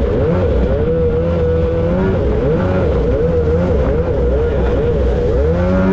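Two-stroke engine of a mini Superjet jet boat under way through shallow riffles, its pitch wavering up and down again and again, then rising steadily near the end as the revs climb. Rushing water and hull noise run underneath.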